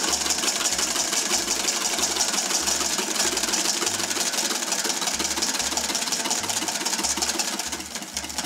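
Wire whisk beating fast against a stainless steel mixing bowl, a steady rapid clatter, while sunflower oil is poured in to emulsify the egg-yolk and mustard base into mayonnaise. It softens slightly near the end.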